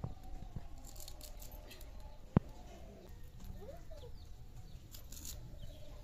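Small snakehead fish being scraped and cut on a boti, an upright curved blade on a wooden base: scattered light scraping clicks, with one sharp knock about two and a half seconds in.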